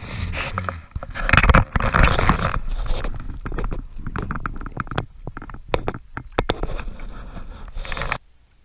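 Close handling noise in a canoe as a caught largemouth bass is held and lowered over the side for release: rustling and scraping with a string of sharp clicks and knocks, loudest in the first couple of seconds. The sound cuts off suddenly near the end.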